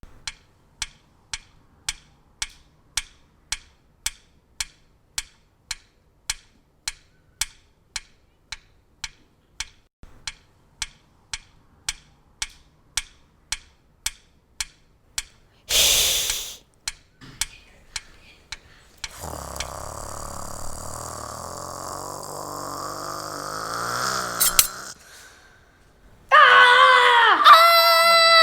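A run of homemade Foley sound effects. Sharp clicking taps come about twice a second for some sixteen seconds, then a short loud burst of noise. Next is a steady hissing, rumbling stretch of about five seconds, and loud squeaks gliding up and down near the end.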